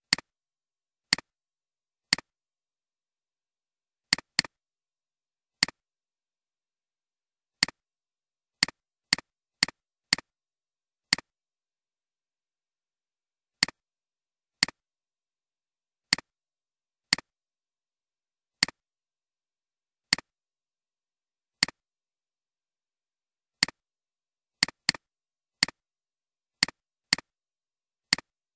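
Computer mouse clicks at irregular intervals, some single and some in quick pairs like double-clicks, with dead silence between them.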